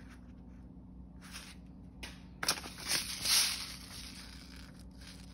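Paper seed packets and newspaper packing rustling and crinkling as they are handled, in short irregular bursts, loudest from about two and a half to three and a half seconds in, over a faint steady low hum.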